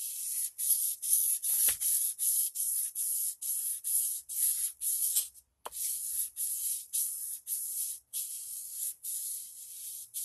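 An axe's bevel rubbed back and forth on sandpaper to sharpen it: a steady run of hissing strokes, about two to three a second, broken by two short pauses.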